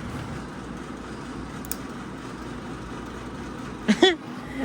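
A steady low rumble of running machinery, with a faint click about one and a half seconds in and a short vocal sound near the end.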